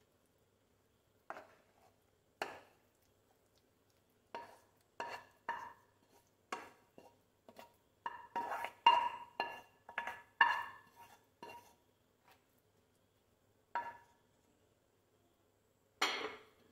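A wooden spoon scraping and knocking thick jackfruit batter out of a non-stick pan into a steel tin: a run of clinks and knocks that ring briefly, scattered at first, densest and loudest in the middle, with a couple more near the end.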